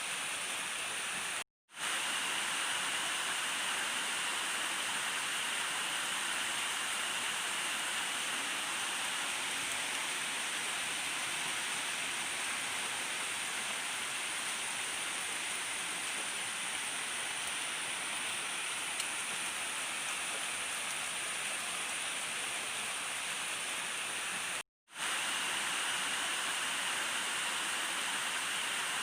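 Steady rain falling, an even hiss without thunder, cut off by a brief gap of silence twice, once near the start and once near the end.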